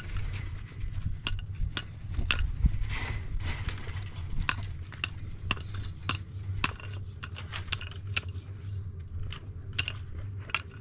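Irregular light clicks and clinks, many in quick succession, over a steady low rumble.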